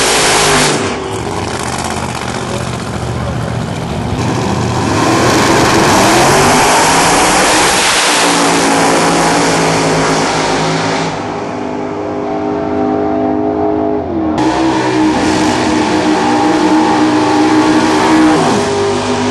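Supercharged drag-racing car engines at full throttle. A blown Camaro launches and its engine climbs in pitch as it pulls away down the strip, fading with distance. After an abrupt cut, another blown car's engine revs hard and steadily through a tyre-smoking burnout, then drops in pitch near the end.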